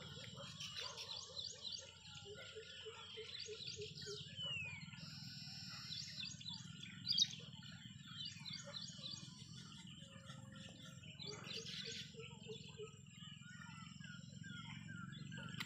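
Several birds chirping and trilling, with a lower call repeated in quick runs of about six notes, twice, and one sharp louder chirp about seven seconds in, over a steady low rumble.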